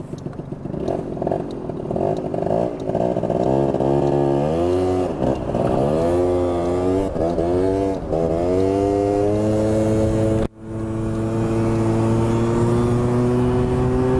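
Motorcycle engine pulling away from a stop and accelerating through the gears, its pitch climbing in several steps that drop back at each shift. After a brief cut in the sound about ten seconds in, it runs steadily at cruising speed with a slowly rising pitch.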